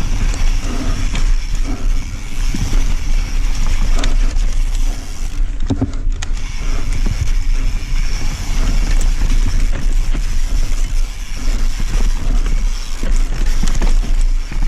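Mountain bike descending a forest dirt trail at speed, heard from a handlebar-mounted camera: heavy wind rumble on the microphone with tyre noise and the bike clattering and rattling over roots and rocks, a harder knock a little before the middle.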